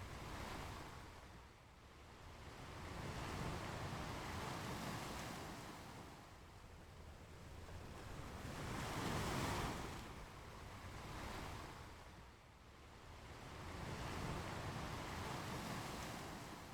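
Ocean waves breaking and washing up on a beach, swelling and fading every few seconds, with louder breakers about nine seconds in.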